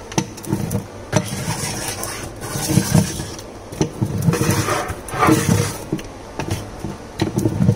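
Sticky lint roller rolled back and forth over a cabinet shelf, its adhesive sheet crackling and rasping as it picks up dust and grit, in several strokes.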